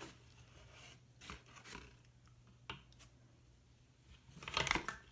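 Faint handling sounds of baking utensils: a few light clicks, then a louder patch of rustling and scraping near the end, as flour is scooped and measured with a measuring cup.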